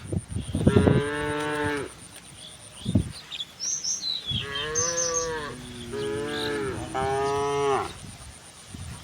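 Cattle in a herd mooing: four long moos from different cows, two of them overlapping, with a short pause near the middle.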